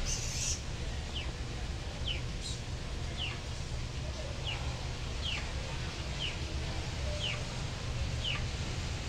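A chick peeping: about eight short, falling peeps, roughly one a second, over a steady low hum. There is a short hiss right at the start.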